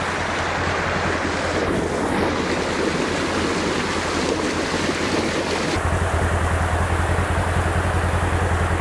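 Floodwater rushing hard under an old timber bridge, a dense, steady roar of water. About six seconds in the sound changes abruptly to a steady low rumble with the water noise duller.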